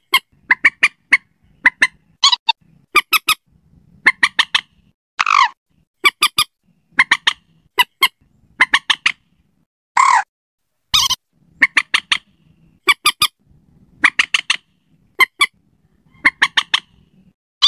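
Common moorhen calls: short, harsh notes in quick groups of two to five, repeated every second or so, with an occasional longer falling call.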